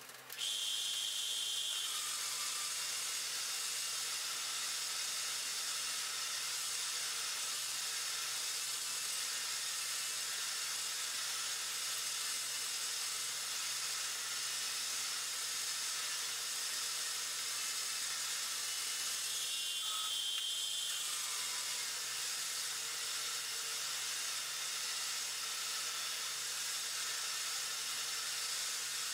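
Bridgeport-type vertical milling machine slotting steel with a roughing end mill: a steady hiss over a faint hum from the 1 hp spindle. A brief high tone sounds twice, just after the start and about twenty seconds in.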